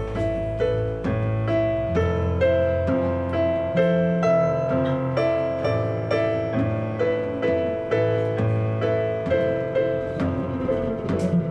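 Live instrumental band music: a Casio stage keyboard on a piano sound plays a run of steady, evenly attacked notes over electric bass guitar notes underneath. Near the end the low line slides down and a few cymbal strokes come in.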